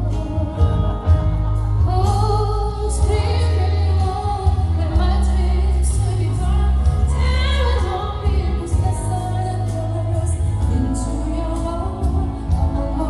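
A woman singing live with a band: her held, sliding vocal lines over heavy bass and drums.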